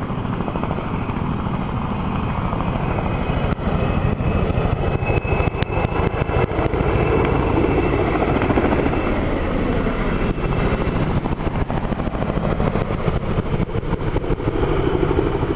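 Military helicopter running, its rotor blades beating in a rapid chop; the noise steps up louder about three and a half seconds in.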